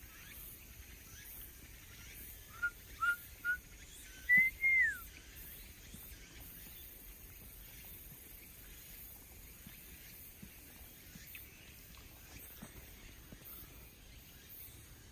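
A bird whistling a short phrase: three short clear notes, then one longer, higher note that rises and falls. A faint steady outdoor background runs under it.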